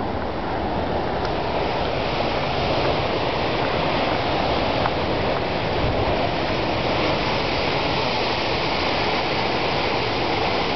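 Heavy surf breaking against rocky cliffs below: a steady, unbroken roar of rough sea.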